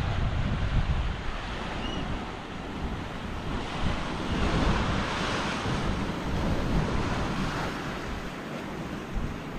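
Ocean surf washing ashore, swelling to a peak about five seconds in, with wind buffeting the microphone.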